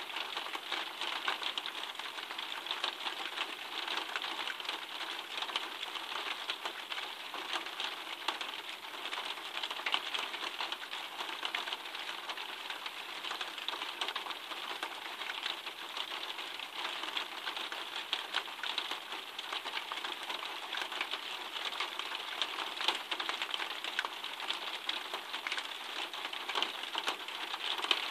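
Steady rain falling, heard as an even hiss full of many close, fine ticks of individual drops striking surfaces.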